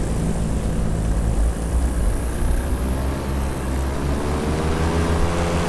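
Paramotor's two-stroke engine and propeller running steadily in flight, with wind rushing past.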